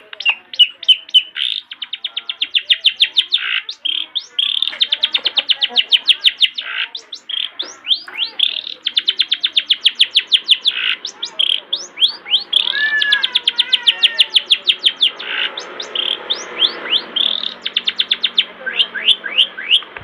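Caged long-tailed shrike (cendet) singing full-voiced: fast rattling trains of sharp high notes, many a second, in bursts with short breaks. From about twelve seconds in, some lower, arched notes are mixed in.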